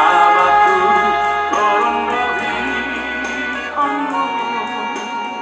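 Background music with sustained instrumental notes, slowly getting quieter.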